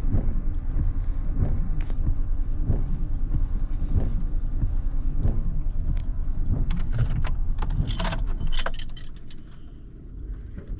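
Steady low rumble of a car or truck, with a regular thump about every second and a bit. Near the end there is a burst of sharp rattling and clicking, and then the rumble drops away.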